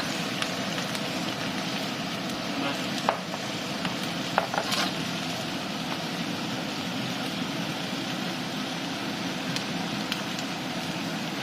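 Food frying in a pan with a steady sizzle, broken by a few sharp clicks about three to five seconds in.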